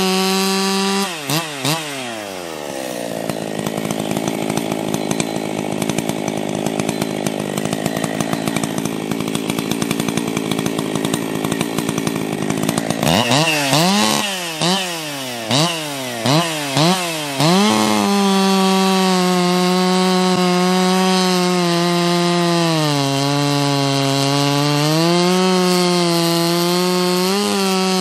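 Stock Husqvarna 272 two-stroke chainsaw at full throttle finishing a cut, then dropping to idle about a second in. Near the middle it is revved in several quick blips, then held wide open in a fresh cut, the engine speed sagging under load for a couple of seconds before climbing again.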